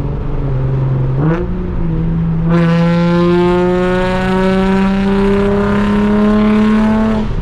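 Nissan Z's V6 through a loud exhaust, heard from inside the car with the windows open. The engine shifts and settles in the first couple of seconds, then pulls hard, the note climbing steadily for about five seconds before dropping near the end as the revs fall.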